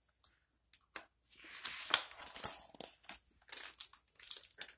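A picture book's paper page being turned: crinkling and rustling for about a second and a half, then a few shorter rustles near the end.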